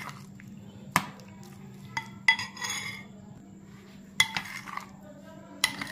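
Metal spoon mixing a thick egg-and-cheese filling in a glass bowl, clinking sharply against the glass about five times, some clinks with a brief glassy ring.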